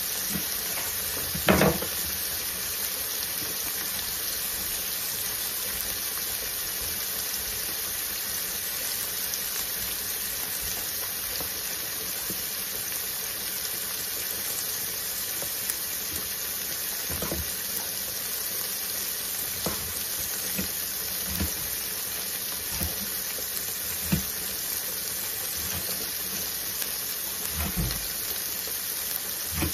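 Sliced chorizo sausage sizzling steadily in a stainless steel pan, with a few short pops, the loudest about a second and a half in.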